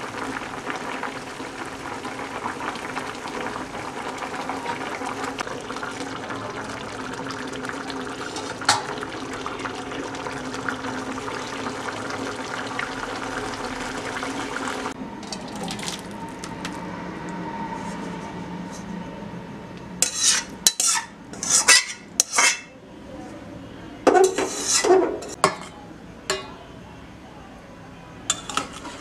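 Coconut-milk curry with eggs and potatoes boiling in a pan, a steady bubbling that stops about halfway through. Then a spatula scrapes and stirs the thick curry against the metal pot in several loud strokes, in two clusters and once more near the end.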